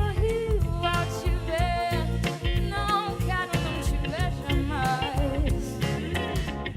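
Song: a voice singing a melody with vibrato over band accompaniment with a steady beat.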